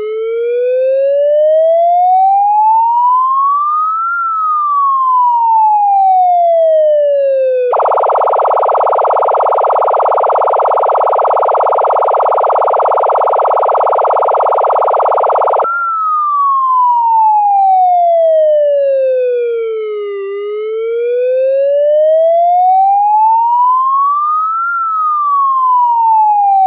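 Police car siren in a slow wail, rising and falling over about eight seconds per cycle. About 8 seconds in it switches to a rapid yelp for about eight seconds, then returns to the slow wail.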